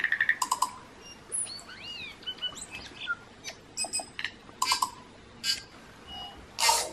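Intro sound effects: a quick run of sharp clicks at the start, then scattered chirps and short whistling glides like bird calls, and a brief noisy burst just before the end.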